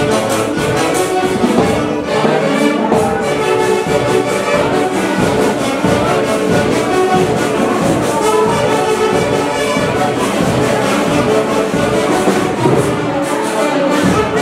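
A live orquesta típica playing a dance tune, with horns carrying the melody over a steady beat.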